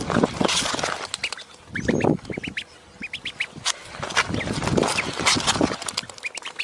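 Ducks quacking, with a run of short, high chirping calls and scattered knocks in between.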